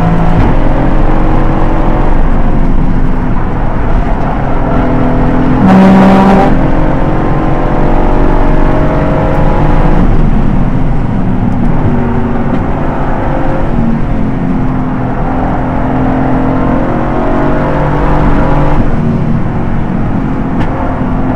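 Aston Martin GT4 race car's V8 engine running hard at speed, its pitch climbing and dropping with throttle and gear changes. A brief loud burst of noise comes about six seconds in.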